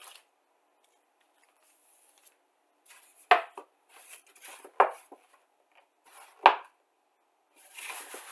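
Plastic model kit being unpacked by hand: three sharp knocks about a second and a half apart as the box and the bagged plastic sprue are handled and set down on a cutting mat, with rustling of the plastic bag between them and more rustling near the end.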